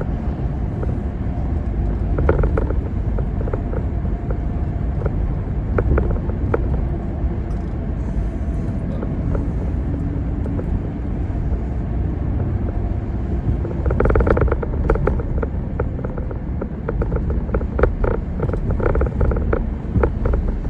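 Road noise inside a moving car: a steady low rumble of tyres and engine. About two-thirds of the way through, a run of irregular clicks and knocks joins it.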